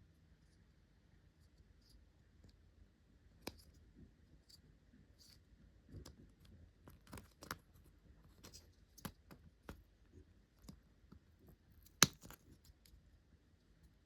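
Faint scattered clicks and light scrapes of small hand tools and parts being handled, about a dozen in all, with one sharp, louder click about twelve seconds in.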